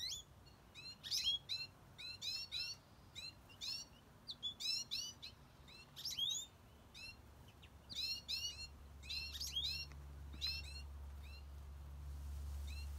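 Goldfinches calling: short, high chirping notes repeated in quick clusters throughout. A low rumble rises in the background in the second half.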